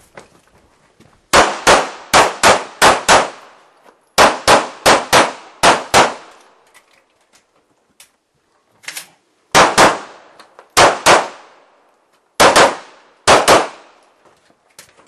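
Handgun fired in fast strings of five or six shots, with pauses of about a second between strings and a fainter pair of reports about nine seconds in.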